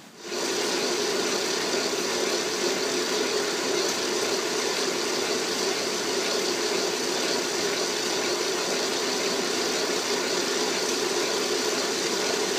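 Metal lathe running steadily with a steady machine hum, its tool taking a facing cut across the end of a steel bushing ring held in the chuck. The sound starts just after the beginning as the lathe comes up to speed.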